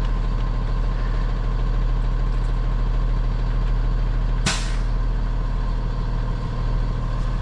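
Diesel engine of a Peterbilt 337 rollback tow truck idling steadily, with one short, sharp hiss of released air about four and a half seconds in.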